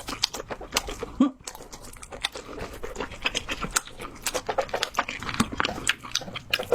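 Close-miked chewing of lobster and abalone meat: a rapid, irregular run of small sharp mouth clicks. A brief low hum comes about a second in.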